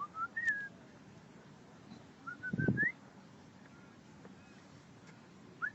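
Black swans calling: a few short, high whistling notes that slide upward, near the start, in the middle and again at the end. A brief low thump sounds about halfway through.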